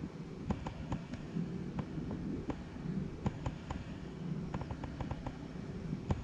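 Many light, irregular clicks over a steady low rumble of outdoor background noise.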